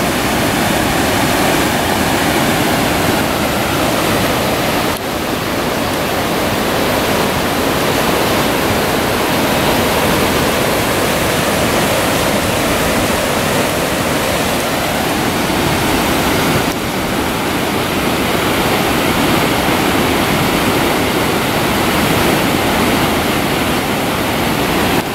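Loud, steady rushing noise with no speech, dipping briefly twice.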